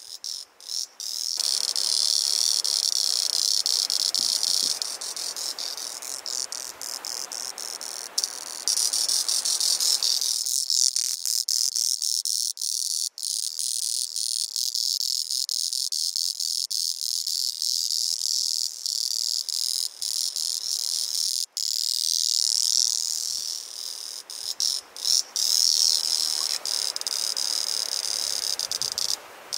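Male two-spotted cicada (Auritibicen bihamatus) singing with its tymbals: a loud, high, buzzing drone in long unbroken phrases. It breaks into rapid stuttering clicks at the start, about a third of the way in and again near the end.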